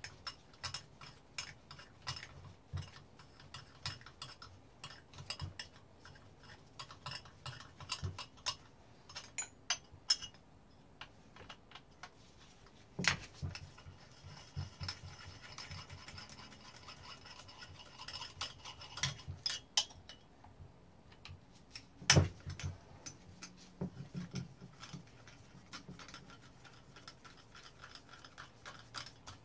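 Small clicks, taps and scraping of tools and metal parts as a Husqvarna 357 chainsaw is disassembled by hand, with two sharper knocks about 13 and 22 seconds in.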